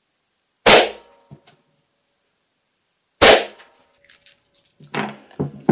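Two shots from a .38 Smith & Wesson revolver firing 125-grain rounds, about two and a half seconds apart, each a sharp report with a short ringing tail. Near the end come light metallic clicks and clinks as the revolver is handled.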